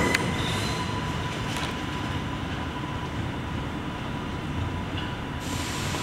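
New York City subway train running in a tunnel: a steady low rumble with a faint thin whine above it and a brief click right at the start.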